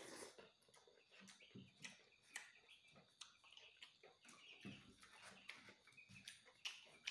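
Faint close-up eating sounds: a person chewing a mouthful of rice and soft insect grubs, with irregular wet mouth smacks and clicks.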